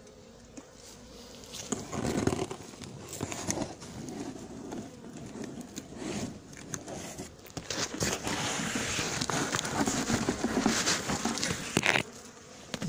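Irregular rustling, crinkling and scraping of cardboard and cloth being handled, with short knocks, starting about two seconds in and stopping shortly before the end.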